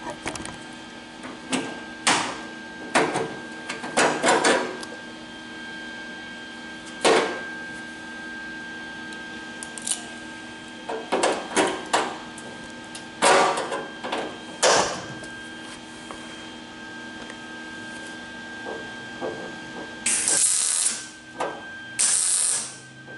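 Steel locking pliers clicking and knocking against a car door's sheet-metal skin as they are clamped and repositioned. Near the end come two short bursts of welding crackle, about a second each, as the seam is tack-welded.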